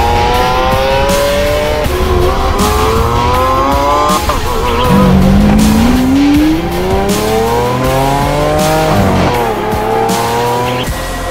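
Lamborghini Aventador LP750-4 Superveloce's V12 accelerating hard through a Fi valvetronic catback exhaust. The pitch climbs steadily, drops back at an upshift about four seconds in and again about nine seconds in, then climbs once more. Music plays underneath.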